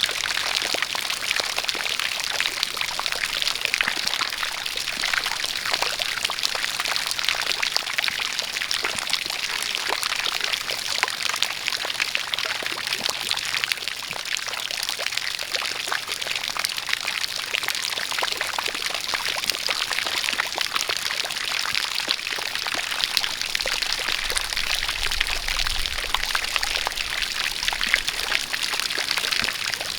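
A spout of water pouring and splashing steadily under rain, a dense patter of drops and splashes.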